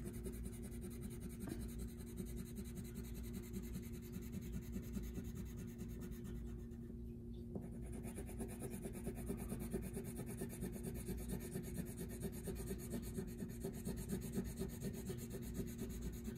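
Blue wax crayon being scribbled back and forth on paper to fill in a shape: a soft, continuous scratching of many quick short strokes, colored lightly. A low steady hum runs underneath.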